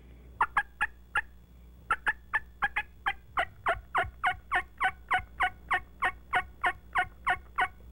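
Widow Maker turkey call worked in a long, even run of hen-turkey yelps, each a short note dropping in pitch, about four a second after a few opening notes.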